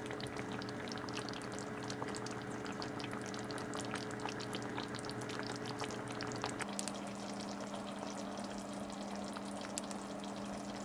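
Taro in a minced-chicken soboro sauce simmering in a frying pan, with a steady hiss of small pops and crackles. Under it runs a steady hum that shifts to a different pitch about two-thirds of the way through.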